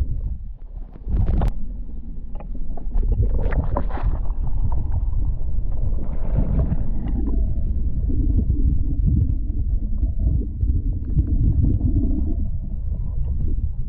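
Muffled, low rumble of water heard underwater through a waterproof action-camera housing, inside a large spring's upwelling where a great volume of water rises to the surface. Scattered clicks and knocks come through it, the sharpest about a second and a half in and a cluster around four seconds in.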